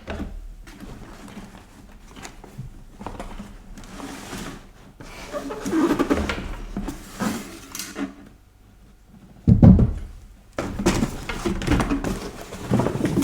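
Rustling and handling of packaging while items are unpacked from a box, with scattered knocks and one loud thump about two thirds of the way through.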